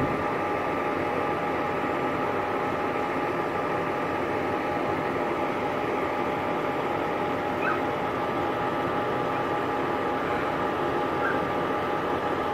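A steady mechanical drone with a constant hum, unchanging throughout, with a couple of brief faint high chirps about eight and eleven seconds in.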